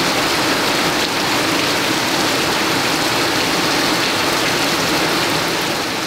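Steady rain falling, an even, dense hiss.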